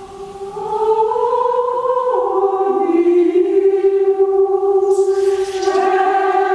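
Background music of choir-like voices holding long sustained chords, the notes stepping down in pitch about two seconds in.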